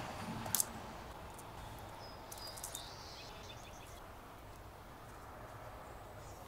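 Faint outdoor ambience: a low hum dies away in the first second, a sharp click comes about half a second in, and a bird chirps briefly a few times about two to three seconds in.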